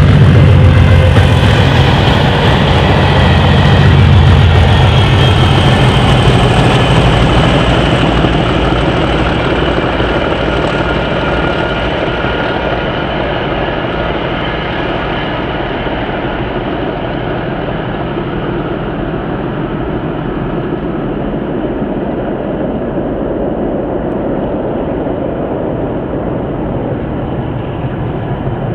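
Class 37 diesel locomotives' English Electric engines and the train's wheels running away along the line. The low engine rumble is loudest at first, then fades steadily.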